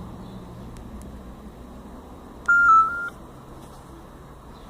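Mobile phone giving a short electronic beep tone as a call is placed, about halfway through, lasting about half a second with a slight step down in pitch. A faint steady hiss and hum lie underneath.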